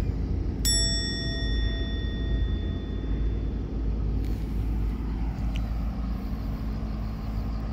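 Steady low outdoor rumble. A steady high tone with overtones sounds from about a second in and lasts about three seconds.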